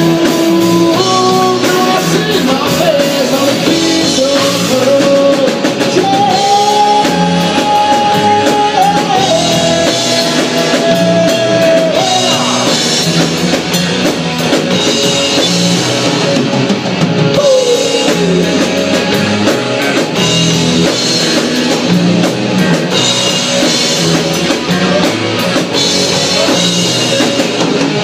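Rock band playing live: electric guitar, bass guitar and drum kit with a steady beat. Long held melody notes come a quarter of the way in, and a falling slide about two-thirds through.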